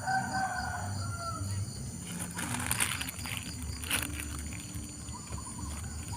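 A rooster crowing once at the start, a call of about a second and a half. It is followed by two short rustling noises, about two and a half and four seconds in, over a steady high insect drone.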